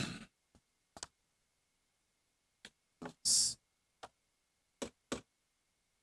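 Scattered short clicks and light knocks, about seven of them, with one brief louder rustle a little after three seconds in. They are handling noises from papers and small objects at the board's dais.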